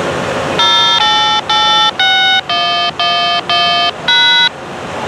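A short electronic melody of about eight clipped notes, each switching sharply on and off at a different pitch, over steady background hiss.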